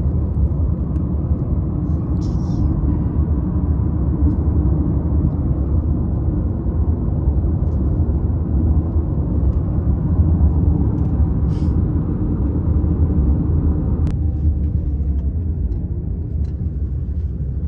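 Steady low rumble of a moving car heard from inside the cabin: engine and tyre noise on the road, with a few faint clicks.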